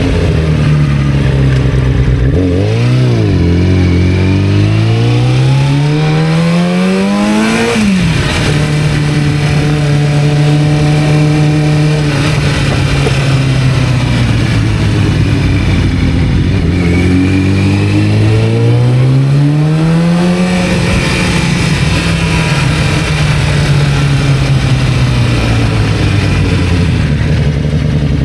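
1991 Kawasaki ZZR-400's inline-four engine under way, heard from on board with wind rush. It revs up through a gear and drops sharply at an upshift about eight seconds in, holds a steady cruise, eases off, then pulls up again before settling back to a steady cruise.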